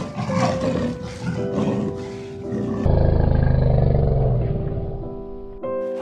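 Big cat roaring and growling: a rough, loud roar in the first few seconds, then a long, low, rasping growl that fades out about half a second before the end, over background music.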